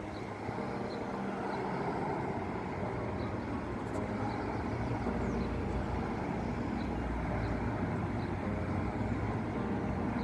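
Cars passing on a multi-lane city street: steady traffic noise of engines and tyres, swelling and fading as each vehicle goes by.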